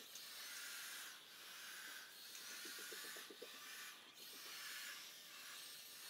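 Faint hiss and rubbing of a Roidmi EVA robot vacuum-mop at work on a tiled floor, dipping briefly about once a second.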